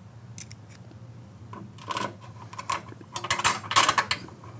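Hand screwdriver driving screws through a metal striker plate into an aluminum door jamb: a series of short metallic clicks and scraping turns, thickest in the second half.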